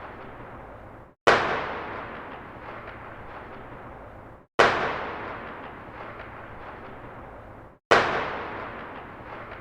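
A single gunshot with a long echoing tail, repeated three times about three seconds apart. Each shot is sharp, then rolls away slowly, like a distant shot echoing down a street.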